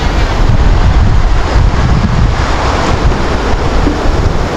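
Wind buffeting the microphone: a loud, steady rushing with a deep rumble.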